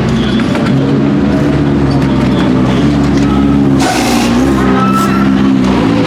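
BMW M6 GT3's twin-turbo V8 engine running hard, its pitch stepping between held notes, with a short sharp burst of noise about four seconds in.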